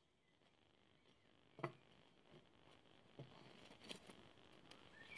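Faint rustling of nylon drawstring stuff sacks being handled and opened on a wooden table, with one sharp click about one and a half seconds in and a few softer taps after.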